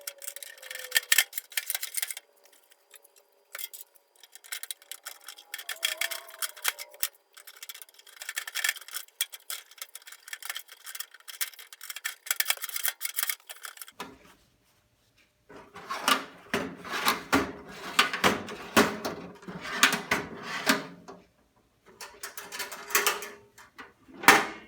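Hand scrubbing and rubbing on a steel toolbox during cleaning: fast, scratchy strokes for the first half. Then heavier clattering and handling of the metal box, ending with a single sharp knock.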